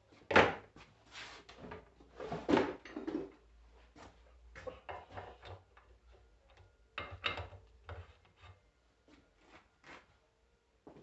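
Irregular knocks, clunks and scraping as starter motor parts are handled and set down on a workbench. The loudest knock comes just after the start, with further clusters a couple of seconds in and again about seven seconds in.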